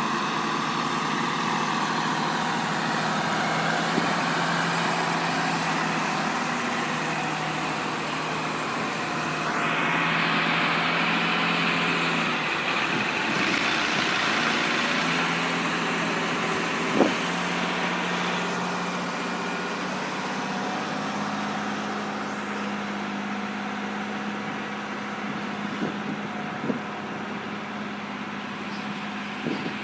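Heavy truck diesel engine running, its pitch stepping up and down, with a stretch of louder hiss in the middle and a single sharp knock a little past halfway.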